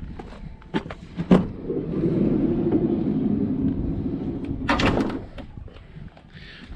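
A Mercedes-Benz Sprinter van's sliding side door being opened: a sharp click as the latch releases about a second and a half in, a steady rumble as the door rolls back along its track for about three seconds, then a clunk as it stops open.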